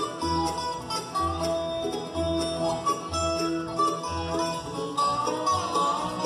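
Acoustic bluegrass band playing live: upright bass notes about once a second under picked acoustic guitars and mandolin, with fiddle and banjo.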